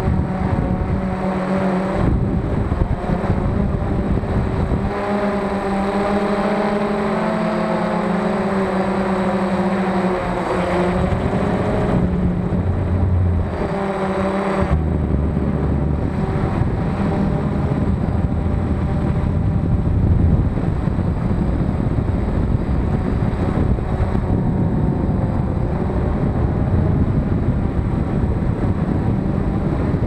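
Small camera drone's electric motors and propellers whining in flight, several tones shifting in pitch as it manoeuvres, with wind rushing over its onboard microphone.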